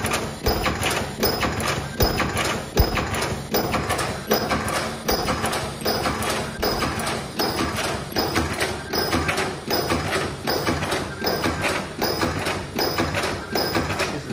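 Automatic ultrasonic elastic-band welding machine running at full speed, about 78 pieces a minute. It cycles with an even clacking rhythm of about one and a third knocks a second, each with a short high-pitched tone.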